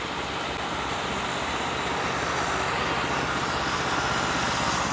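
Homemade band sawmill running steadily, its engine and band blade humming and growing slowly louder.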